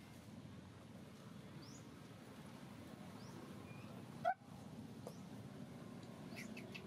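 Quiet outdoor ambience: a low steady hiss with a few faint, short bird chirps. About four seconds in, a single brief rising squeak, much louder than the rest, cut off abruptly by a split-second drop-out.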